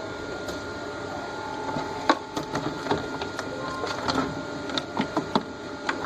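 Computer power supply cables and plastic connectors being handled: scattered sharp clicks and rattles, starting about two seconds in, over a faint steady hum.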